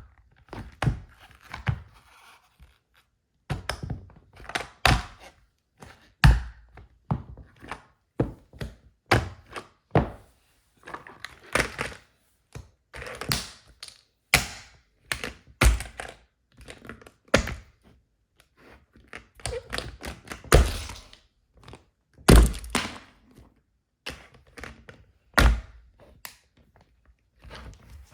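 Wedge heels stamping on and crushing a plastic toy car: a long run of irregular thunks and cracking crunches as the plastic breaks apart, with the hardest stamps a little past the middle.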